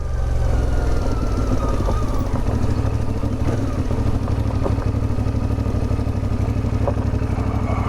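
CFMOTO 450MT's parallel-twin engine running at low revs as the motorcycle rolls slowly along a dirt track, its pitch easing down a little over the first few seconds.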